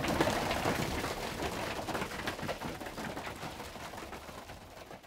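A flock of young racing pigeons shuffling and pecking feed in a loft: many small irregular taps and scuffles that fade out steadily toward the end.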